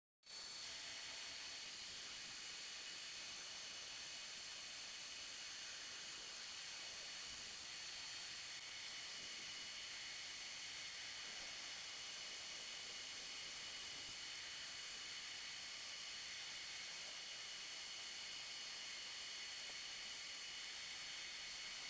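Steady faint hiss with thin, high-pitched whines running through it, and no distinct knocks or strokes.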